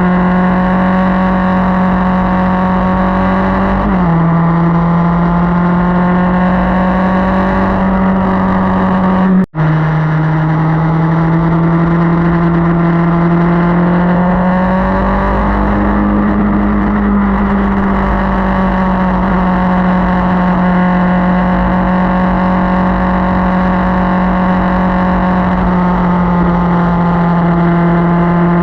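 Motorcycle engine running at cruising speed on the move, with low wind rumble. The engine note drops a step about four seconds in, the sound cuts out for an instant near ten seconds, and the note then climbs gradually before easing off again.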